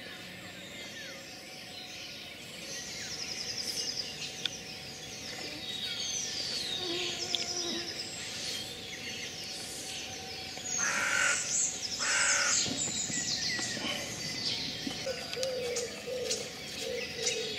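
Wild birds singing and chirping, with two loud harsh calls about two-thirds of the way through.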